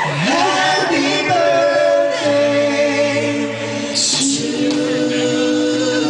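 Male pop vocal group singing in harmony into microphones, several voices holding long notes together.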